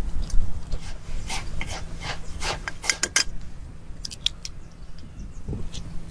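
Rough scraping and rubbing with a run of sharp clicks, thickest in the middle, over a steady low rumble.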